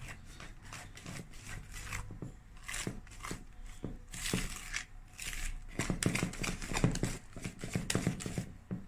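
A hand mixing thick cake batter in a plastic bowl: the batter squelches and slaps in short, irregular strokes, coming faster in the last few seconds.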